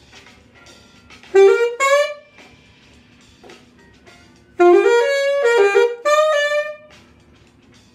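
Saxophone playing a jazz theme in short phrases: a quick two-note figure about a second and a half in, then a longer run of several notes from about four and a half seconds to nearly seven, with quiet pauses between the phrases.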